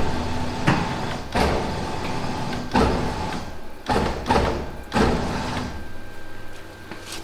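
Repeated heavy metal clunks and knocks, about six over five seconds, as the unbolted front wheel and suspension of a VW T3 are shoved and rocked against the raised body.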